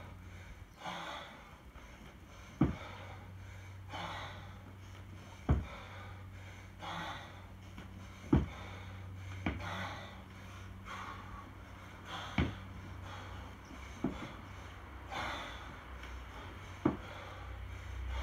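Hard, rhythmic breathing of a man lifting a 24 kg kettlebell in repeated jerks, with forceful exhalations every few seconds. Sharp knocks come about every three seconds in time with the reps, and they are the loudest sounds.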